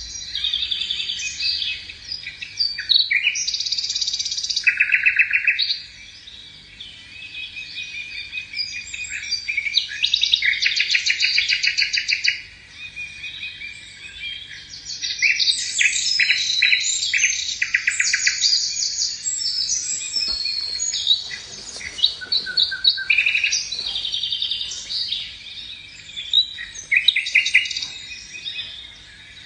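Songbirds singing: a continuous stream of overlapping rapid trills and high chirps, with short lulls between bursts.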